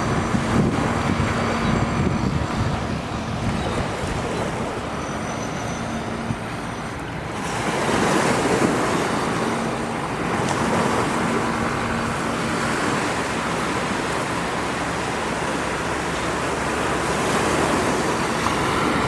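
Ocean surf washing up on a sandy beach, a steady rush that swells once about eight seconds in.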